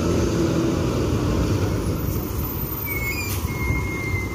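Mercedes-Benz coach's diesel engine running at low revs as the bus rolls slowly past, a steady low rumble.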